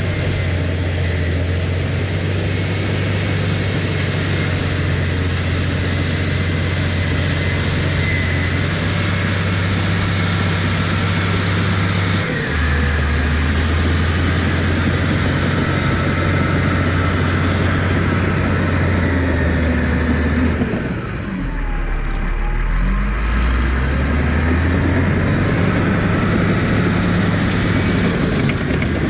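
Earthmoving machine's engine running under load while pushing topsoil, its pitch stepping up and down. About two-thirds of the way through, the engine speed drops low briefly and then picks back up.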